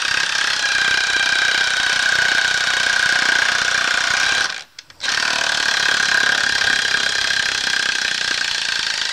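Chicago Electric 1/4 in. 18-volt cordless impact driver hammering a rusty 3/8 in. by 4 in. lag screw into the edge of a 2x4 through a socket. It runs steadily, stops for about half a second about four and a half seconds in, then hammers again.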